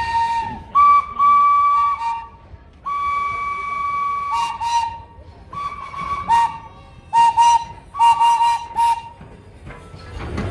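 Whistle on a Thomas the Tank Engine replica locomotive blowing a few long blasts, then a quick run of short toots, switching between two close pitches.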